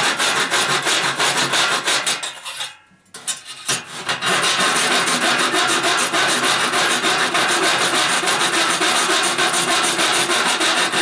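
Hand saw cutting through a thin aluminium dome panel, rapid back-and-forth strokes dragged with light pressure. It stops about two and a half seconds in and starts again about a second later.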